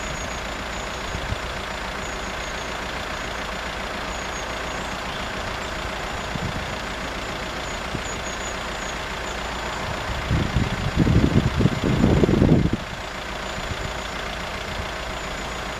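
Steady outdoor background hum with faint high chirping. From about ten seconds in, wind gusts buffet the microphone with loud low rumbles for two to three seconds, then stop abruptly.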